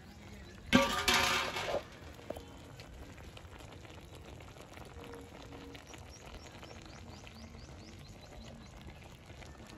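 A stainless steel plate used as a wok lid clatters and rings briefly about a second in as it is lifted off and set down. After that only a low, steady background with faint ticks remains.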